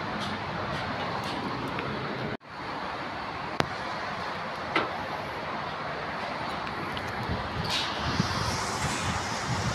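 Steady outdoor background noise of wind and distant road traffic. It cuts out for an instant about two and a half seconds in, has a sharp click soon after, and has some uneven low knocks and rustling near the end.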